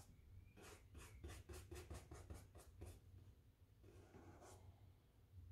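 Faint, quick, scratchy strokes of a paintbrush working oil paint onto canvas, about four or five strokes a second for a couple of seconds, then one more stroke near the end.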